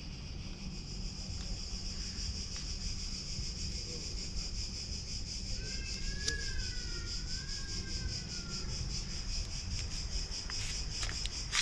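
Insects calling steadily in a high, pulsing drone, over a low rumble; a wavering whistle-like tone rises and falls for about three seconds midway.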